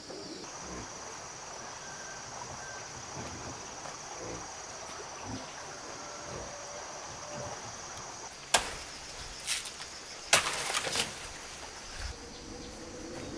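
Steady high-pitched insect chorus, with a few sharp knocks after about eight seconds, the loudest one near the start of that run.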